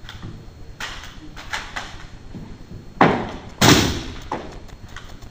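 Drill rifles being spun and caught: a few light clacks of hands catching the rifles, then two loud knocks a little under a second apart near the end as the rifle butts strike the gym floor.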